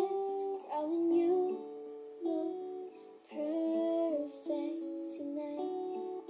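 Background music: an acoustic song with plucked guitar accompaniment.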